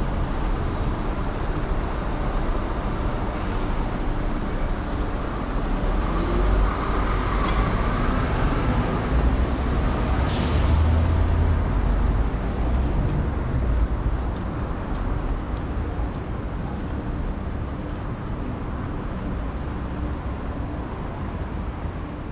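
Town-centre street ambience with a steady low rumble of traffic that swells around the middle, and a short sharp hiss about ten seconds in.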